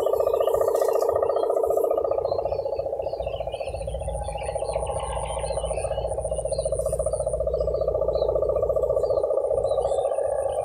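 Sendaren kite hummer of the 'mesin brujul' kind droning in the wind on a high-flying winged kite: a steady, fast-pulsing buzzing drone meant to sound like an engine, easing a little a few seconds in. Small chirps and a low rumble sit under it.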